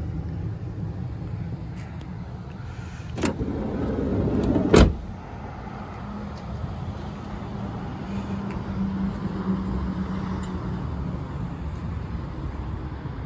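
Minivan sliding side door shut: a click, then a rising rolling sound along its track for about a second and a half, ending in a loud slam about five seconds in. A steady low hum runs underneath.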